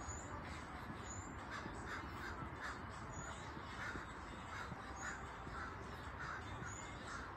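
Crow cawing repeatedly, faint, over a soft regular patter of about two to three steps a second from feet jogging in place on an exercise mat.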